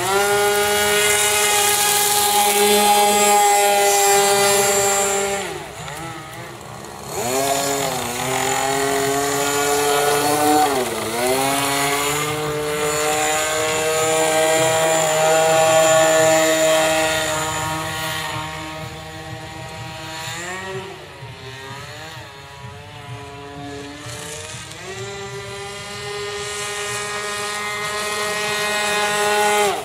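Gas-powered RC speedboat's two-stroke engine running hard as the boat races across the water. Its pitch drops and climbs back several times as the throttle is eased and reopened, and the sound grows fainter for a while past the middle.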